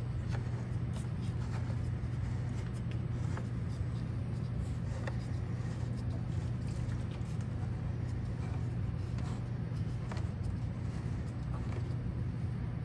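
Colamark A117H automatic drum wrap labeler running: a steady low hum from its motors and conveyor, with scattered light clicks as the plastic quart bottles jostle along the conveyor.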